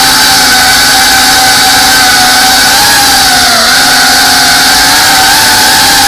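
FPV quadcopter's brushless motors and propellers whining steadily and loudly, recorded up close by its onboard camera; the pitch dips briefly a little past halfway, then comes back.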